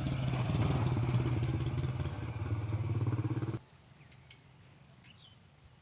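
Motorcycle engine running steadily while riding, cutting off abruptly about three and a half seconds in. After that only a faint background with a few short chirps.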